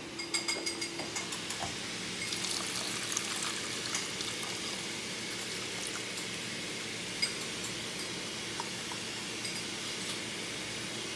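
Chicken broth pouring from a can into a pot of melted butter: a steady liquid pour, with a few light metallic clinks from the can in the first two seconds.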